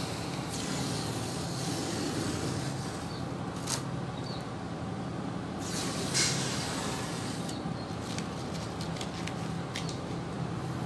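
Masking tape being peeled off a car's painted door panel: a drawn-out tearing hiss in the first few seconds and a shorter, louder rip about six seconds in, over a steady low background hum.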